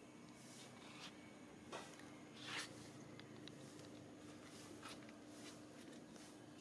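Near silence: a faint steady hum with a few brief soft rustles, the clearest about two and a half seconds in.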